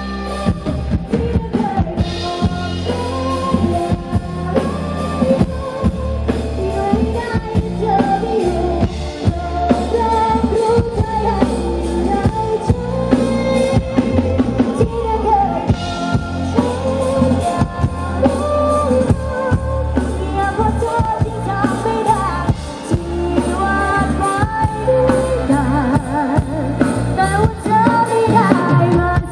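Live band playing through a Thai rot hae sound truck's PA: a woman singing a melody over drum kit, electric bass, guitar and keyboard.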